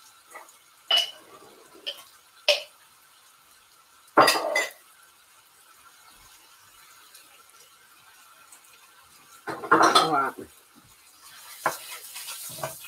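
Kitchen clatter: a few separate clinks and knocks of utensils and dishes, the loudest about four seconds in and again around ten seconds. A faint sizzle of chicken frying in the pan rises near the end.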